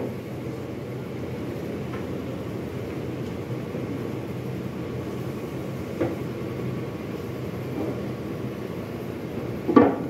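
Heavy plaster casting moulds knocking as they are lifted, opened and set down, a few separate knocks with the loudest near the end, over a steady factory hum.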